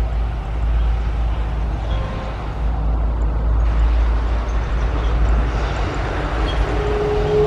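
Boeing 777-300ER's GE90 turbofan engines running with a steady, heavy rumble. Near the end a steady howling tone comes in over the rumble: the characteristic howl of the 777's engines.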